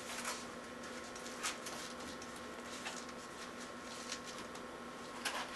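Faint handling noises: a few soft clicks and scrapes, roughly one every second or so, as a padding piece is fitted by hand onto a bicycle frame tube, over a steady faint hum.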